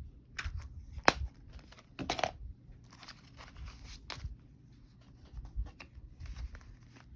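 Paper handling: savings-challenge cards, envelopes and cash being picked up and shuffled, with short rustles and light knocks on the table and one sharp click about a second in.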